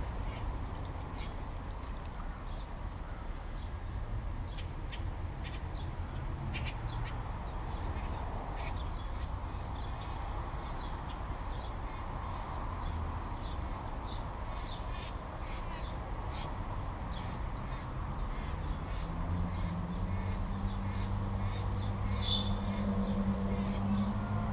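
Crows cawing repeatedly over a steady low rumble. A low droning tone comes in near the end.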